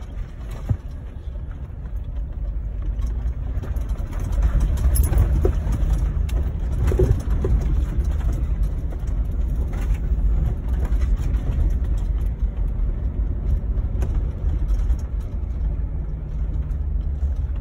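A Jeep driving slowly over a rough gravel road, heard from inside the cab: a steady low engine and road rumble with scattered clicks of gravel under the tyres, getting louder about four seconds in.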